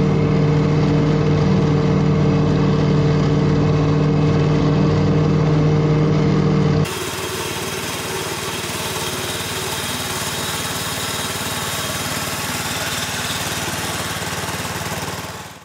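Exmark Navigator mower's engine running steadily under load while mowing, a loud even hum. About seven seconds in it gives way abruptly to a John Deere walk-behind reel mower running, quieter and more hissy, which fades out near the end.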